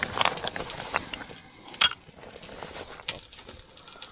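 Small wood fire in a metal tent stove crackling, with irregular sharp pops and clicks and one louder crack about two seconds in, as the bark and kindling catch.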